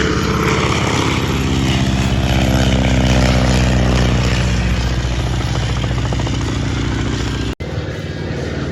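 Boeing Stearman biplane's radial engine and propeller passing by at a low flyby, the engine pitch dropping as it goes past. A sudden cut near the end, after which a steady engine sound continues.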